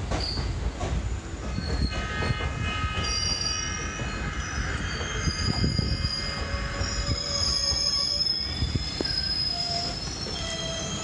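Train running on the rails with a steady low rumble, and from about two seconds in a high, shifting squeal of steel wheels grinding against the rails, typical of a train taking a curve.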